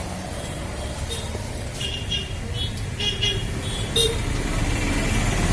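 Steady low rumble of road traffic, growing louder near the end, with a handful of short, high chirps scattered through it.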